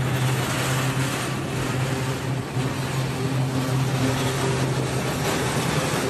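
Miniature park train running, heard from on board: a steady motor hum with a constant low tone over a rolling, rumbling noise.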